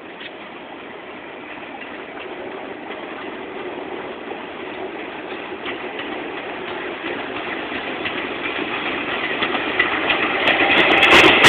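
R46 subway train approaching on the rails, its running and wheel-on-rail noise growing steadily louder as it nears. Near the end it becomes much louder and brighter as the cars reach the station.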